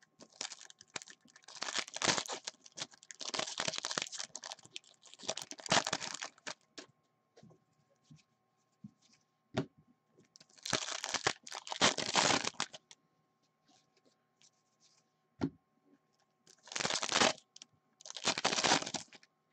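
Foil sports card pack wrappers tearing and crinkling, and cards sliding against each other, in several bursts of rustling: a long stretch at the start, another in the middle, and two short ones near the end.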